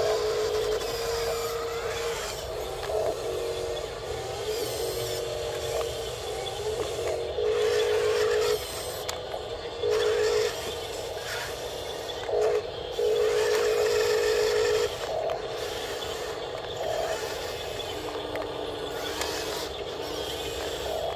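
Small electric motors and gearboxes of radio-controlled model construction machines whining in short runs of one to two seconds, starting and stopping as the model wheel loader and bulldozer are driven.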